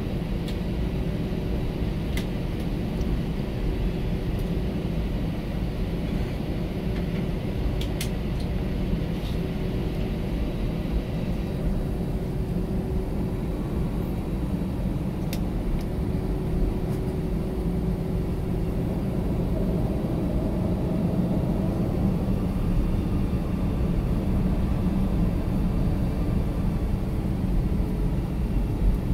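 Airbus A319 cabin noise while taxiing: a steady low rumble of the jet engines and airframe, heard from inside the cabin. After about twenty seconds a faint engine whine comes in and rises slightly as the noise grows a little louder.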